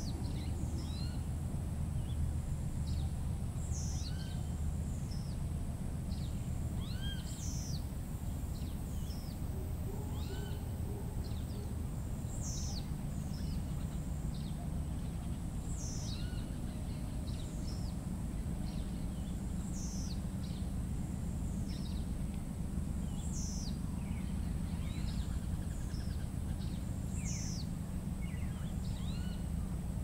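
Tropical rainforest ambience: a bird repeats a high, falling call about every four seconds, with other birds calling around it. A thin steady high tone and a low steady rumble run underneath.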